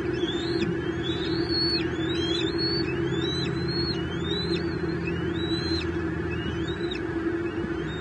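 Bald eagle, most likely one of the eaglets, giving a series of about ten high, thin whistled calls, each rising and then levelling off, repeated about once or twice a second and stopping shortly before the end. A steady low hum runs underneath.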